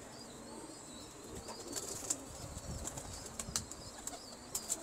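Pigeons flapping their wings, a scatter of sharp wing beats starting about one and a half seconds in, with the loudest ones near the end.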